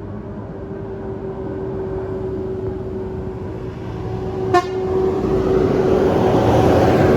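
A large vehicle, most likely a tour bus, approaching on the road, its engine and tyre noise growing louder toward the end. A steady horn-like tone runs underneath, and a short, sharp toot sounds about four and a half seconds in.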